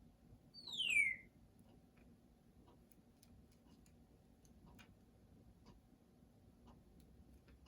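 Congo African grey parrot gives one loud downward-sliding whistle just over half a second in, falling from high to lower pitch. Faint, irregular clicks follow.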